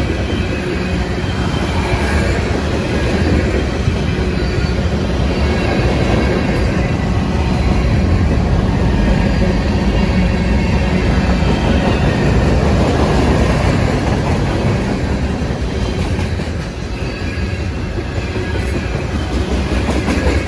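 A BNSF mixed freight train's tank cars and covered hoppers rolling past close by, with the loud, steady rumble of steel wheels on the rails.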